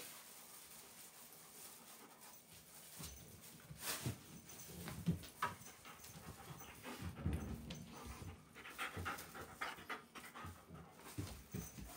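German Shepherd panting in quick, uneven puffs that start a few seconds in, with a few light knocks and rustles.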